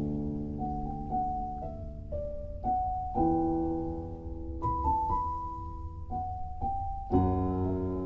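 Slow solo piano music: single melody notes over sustained, fading chords, with a new chord struck about three seconds in and another near the end.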